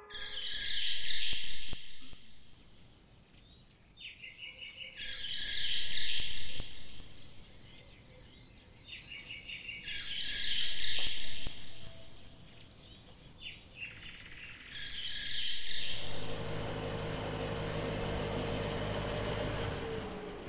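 Electronic performance soundtrack: a high-pitched burst of sound repeats four times, about five seconds apart, each lasting a second or two, with a short stuttering crackle before the later ones. Near the end a steady, noisy drone with a held low tone takes over.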